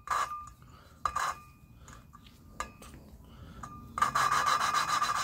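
A poppet valve being hand-lapped into its seat with lapping compound. In the first second or so the valve is tapped against the seat twice, each time with a ringing metallic clink, and a few faint clicks follow. From about four seconds in, a steady gritty rubbing starts as the valve is twisted against the compound-coated seat.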